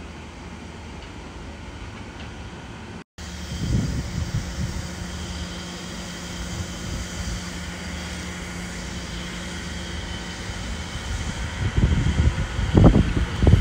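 Steady outdoor machine hum with a low tone, with gusts of wind buffeting the microphone that grow stronger near the end. The sound cuts out for an instant about three seconds in.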